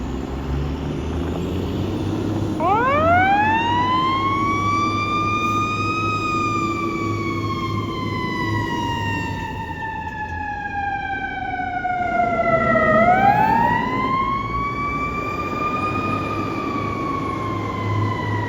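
Fire truck siren starting a couple of seconds in, winding up quickly to its top pitch, then falling slowly. About ten seconds later it winds up again and starts falling once more.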